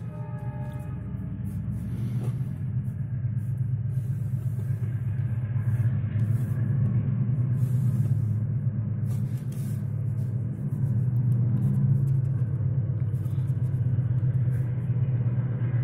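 A steady low rumble that grows louder over the first several seconds, with faint scratching of a marker pen writing on paper.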